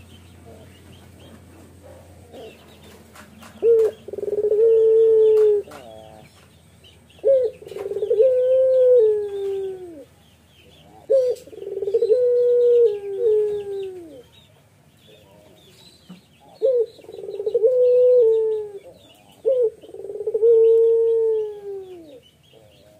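Male puter pelung (ringneck dove) giving its bowing courtship coo: five loud phrases, each a short sharp note followed by a long drawn-out coo that falls away at the end. Faint chirping of small birds runs behind.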